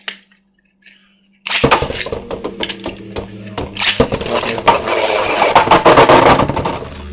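Two Beyblade spinning tops, one of them 3D-printed, launched into a plastic stadium about a second and a half in, then spinning and clashing in a dense rattle of rapid clicks and hits.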